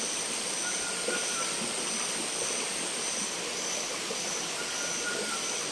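Tropical forest ambience: a steady rushing noise with insects calling over it. One high call pulses about every two-thirds of a second, and a lower call comes twice.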